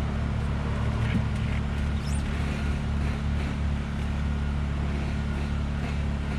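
Steady low mechanical hum, with a brief high rising chirp about two seconds in.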